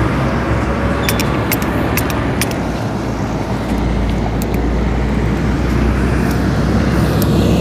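Steady rumble of road traffic, swelling a little midway, with scattered light clicks as a tape measure is handled.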